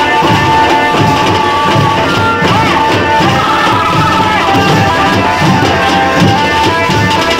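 Folk music with a steady drum beat under sustained melody.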